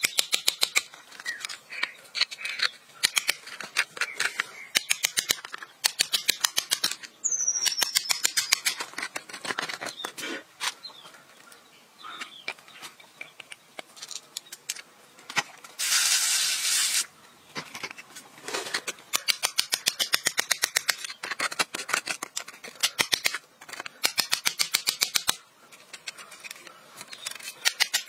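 Rapid runs of sharp clicks in repeated bursts. Near the middle there is a second-long loud hiss, and earlier a brief falling whistle.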